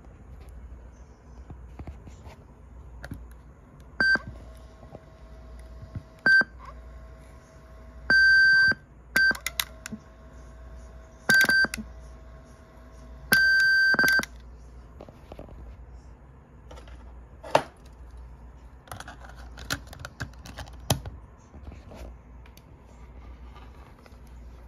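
Sony WM-EX70 Walkman cassette player giving electronic operation beeps as its buttons are pressed: a run of short beeps on one pitch, two of them held for most of a second, with button and mechanism clicks and a faint steady hum between them. Scattered handling clicks follow in the second half.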